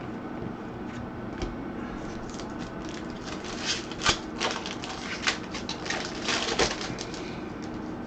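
Irregular crinkling and clicking of trading cards and their pack wrappers being handled, bunched in the middle and sharpest about four seconds in, over a steady room hum.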